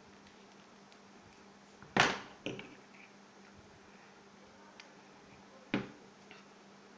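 Sharp plastic clicks of a glue stick and a small clear plastic piece being handled and knocked against a tabletop: a loud one about two seconds in, a smaller one just after, and another near the end when the glue stick is set down.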